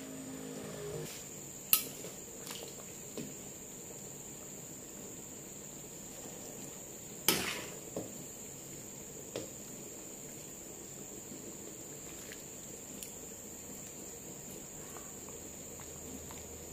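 A steady high-pitched insect trill, as of a cricket, with a few sharp clicks. The loudest clicks come about two seconds and about seven seconds in.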